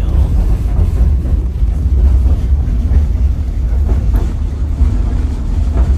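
Steady low rumble of a moving White Pass & Yukon Route narrow-gauge passenger car, heard from inside the car as it rolls along the rails.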